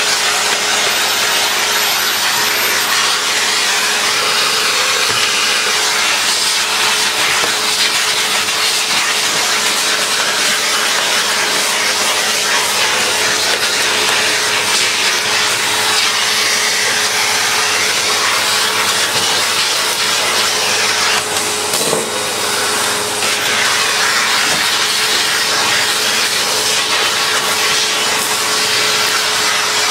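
A vacuum cleaner running steadily with a constant hum, its hose nozzle sucking loose dirt and debris off the casing of an old upright vacuum cleaner.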